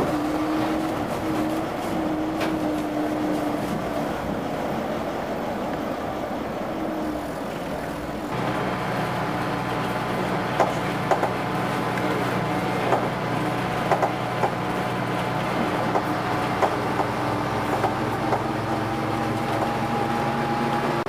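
Vintage double-decker bus running along the road, heard from on board: engine and transmission note with the body and windows rattling. About eight seconds in the sound changes abruptly to a different, deeper engine note with irregular knocks and rattles, and a whine rises near the end.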